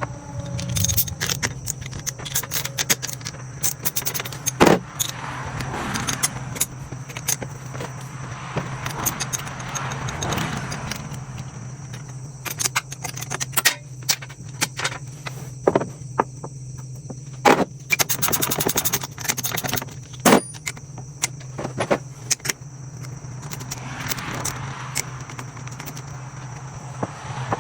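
Metal hand tools and small metal engine parts clinking, rattling and scraping in irregular bursts as a two-stroke dirt-bike engine is taken apart by hand. A steady low hum runs underneath.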